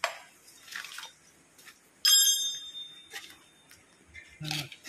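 Steel brake drum on a BharatBenz truck's rear hub being worked into place by hand. There are soft scraping knocks, then one sharp metal clank about two seconds in that rings on for over a second as the drum seats on the hub.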